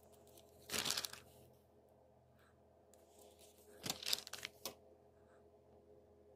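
Two short bursts of rustling or crinkling, about a second in and again about four seconds in, over a faint steady hum.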